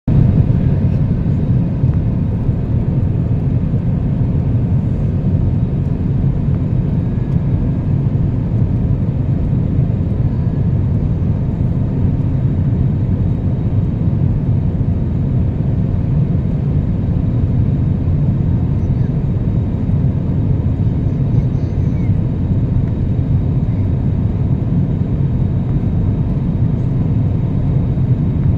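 Steady low rumble of a passenger airplane's engines and rushing air, heard from inside the cabin.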